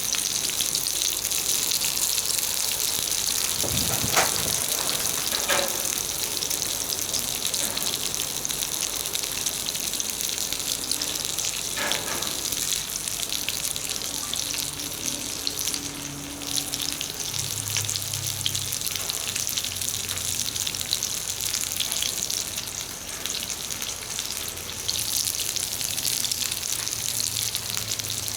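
Jumbo shimeji mushrooms sizzling in olive oil over a wood fire: a steady high hiss with fine crackle. A few knocks sound about four and five and a half seconds in and again near twelve seconds.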